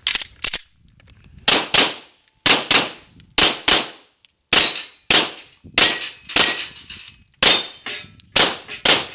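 Semi-automatic pistol fired in rapid pairs (double taps), two shots about a third of a second apart, a pair roughly every second, each shot with a short echoing tail. This is a practical-shooting (IPSC) course of fire, two shots per target.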